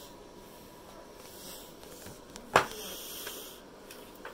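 Wooden pencil scratching across paper in short strokes, with one sharp knock a little past halfway.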